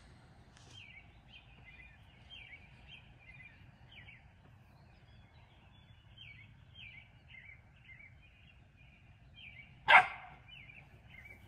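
Small birds chirping steadily, a few short chirps a second, over quiet outdoor background noise. About ten seconds in, a single brief sharp sound, much louder than the rest, stands out once.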